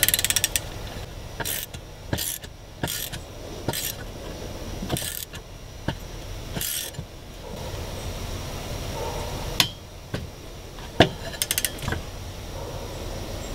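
Ratcheting torque wrench tightening the propeller's castle nut toward its 25.8 foot-pound spec. A quick run of ratchet clicks comes right at the start, then scattered single clicks and knocks, and another quick run of clicks near the end.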